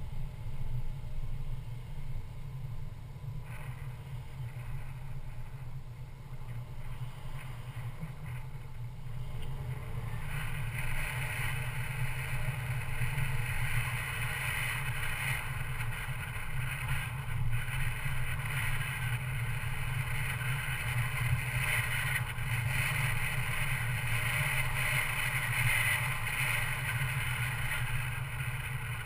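Mercedes-Benz C250 Coupe driving: a steady low engine and road rumble, with a hiss that grows louder about ten seconds in and holds.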